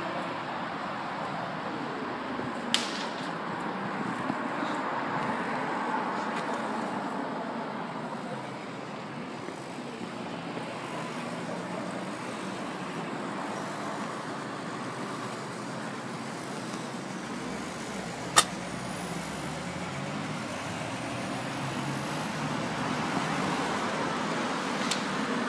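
Steady road-traffic background noise, with no single engine standing out, and a few sharp clicks, the loudest well past the middle.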